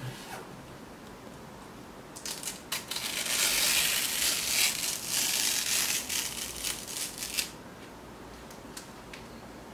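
Clear protective plastic film being peeled off a keyboard case, crackling and crinkling for about five seconds, with a few sharp crackles before and after.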